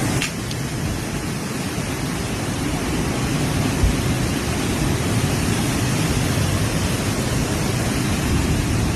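Steady rushing noise of strong tornado wind and rain, heavy in the low end, with a single low thump about four seconds in.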